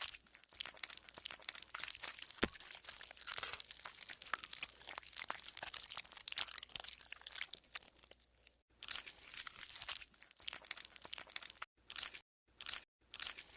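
Green slime being squeezed and stretched by hand, giving dense runs of fine crackling pops and squelches, with short pauses about eight and twelve seconds in.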